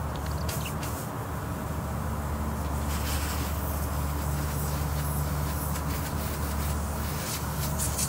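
Pressurised gas hissing steadily out of a crack at a bad bend in the copper TXV equalizing tube, a leak large enough to hear without a detector. Under it runs a steady low machinery hum.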